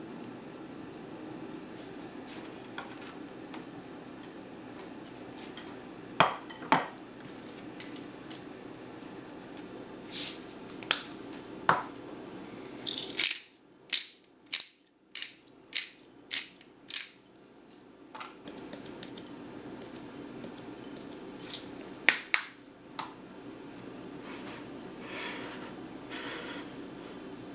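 Dishes and cutlery clinking and knocking in scattered taps, with a quick run of clicks about halfway through, over a low steady hum.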